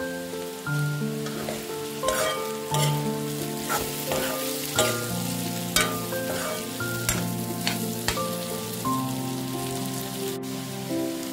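Metal spatula stirring vegetable strips frying in oil in a metal wok: a steady sizzle with irregular clacks and scrapes against the pan, most of them in the middle of the stretch.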